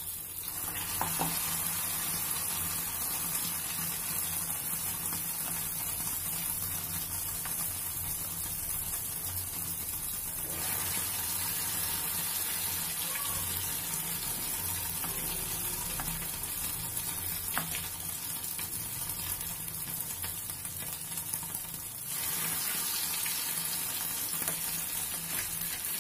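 Egg-dipped rice and vegetable cutlets sizzling as they shallow-fry in hot oil in a frying pan. The steady sizzle grows louder in steps, about a second in, again midway and again near the end, as more cutlets go into the oil.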